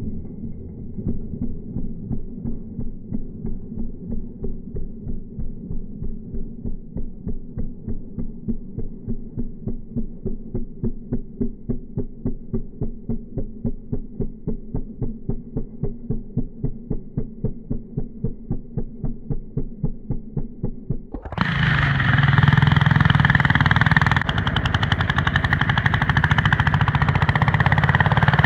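Diesel engine of a Ford garden tractor, first as a deep, muffled, even pulsing of about two to three beats a second. About 21 seconds in it changes suddenly to the full, louder sound of the engine running hard as the tractor drives through deep snow.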